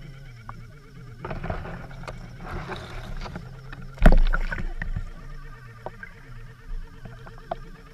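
Muffled underwater sound picked up by a submerged camera: a steady low hum, water rushing around the housing from about a second in, then a heavy knock about four seconds in as a big fish strikes the hanging deadbait rig, followed by scattered clicks and knocks.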